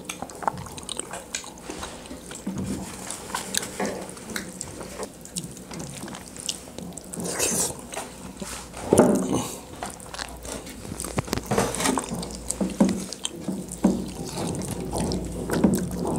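Close-up eating sounds of people eating saucy chicken liver and gizzard curry by hand: wet chewing and lip-smacking with irregular small clicks, one louder cluster about nine seconds in.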